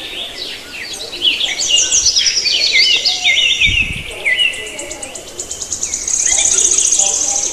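Birds chirping and singing, many short repeated and sliding notes overlapping. About six seconds in, a rapid high trill takes over and is the loudest part.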